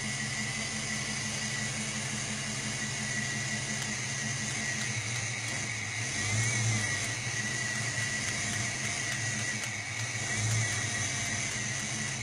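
5.0L Mustang V8 running at idle with a steady high whine over the engine note, swelling twice, about six and ten seconds in. The module is being tapped with a screwdriver, which makes the engine run roughly: the sign of a bad TFI ignition module.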